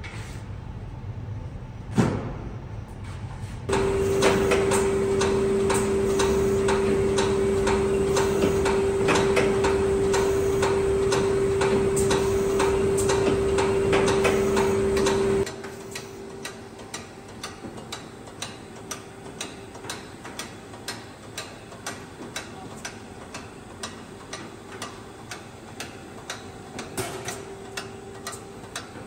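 Haton bread-line machinery running: a single knock about two seconds in, then from about four seconds a loud steady machine hum with regular clicking. The hum stops after about fifteen seconds, leaving a quieter, even ticking of a little under two a second.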